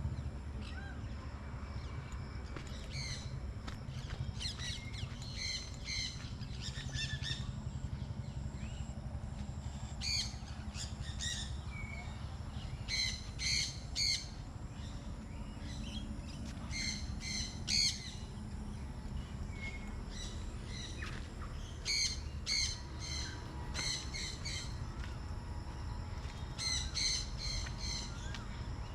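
Parrots and parakeets calling in short, harsh, repeated squawks that come in clusters every few seconds, over a steady low rumble.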